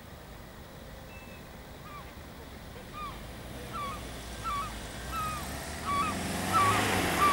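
A van approaching, its engine and tyre noise swelling over the last second or two. Under it runs a series of short pitched calls, about one every 0.7 s, growing louder.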